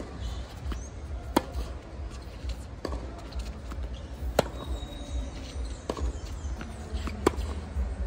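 Tennis baseline rally on a hard court: sharp strikes of racket on ball about every one and a half seconds. Every other strike, the near player's, is louder than the opponent's across the court, and all of it sits over a low rumble.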